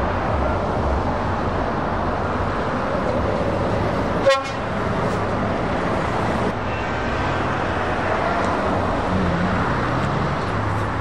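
Heavy truck engines running amid traffic noise, with a single very short horn toot about four seconds in.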